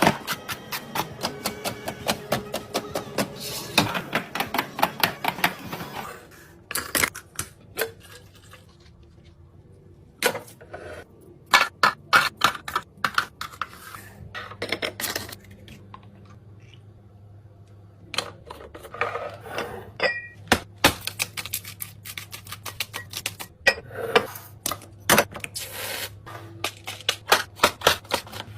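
Small objects being handled and set down while restocking a mini fridge: quick runs of clicks, taps and light clatter, thinning to scattered knocks in the middle and growing busy again after that.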